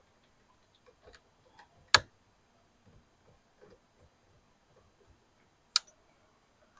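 1979 Chevy Malibu hazard switch clicking sharply twice, about two seconds in and near the end, with the hazard flasher ticking faintly and evenly between the clicks: the newly refitted hazard switch is being tested and the flashers are working.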